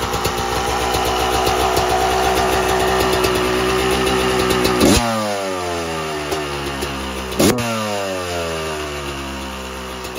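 1990 Kawasaki KX250's two-stroke single-cylinder engine idling, then revved twice, about five seconds in and again a couple of seconds later. Each rev climbs sharply and falls back slowly to idle.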